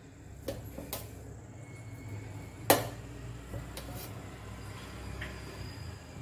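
A few light clinks and knocks of kitchen utensils, the loudest about three seconds in, over a low steady hum.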